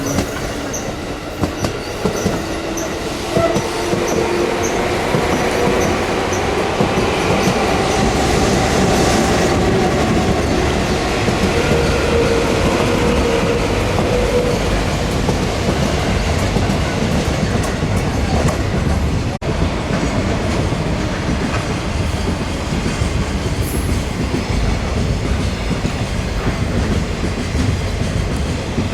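Train running along the platform, its wheels clattering over the rail joints. A whine is heard through the first half.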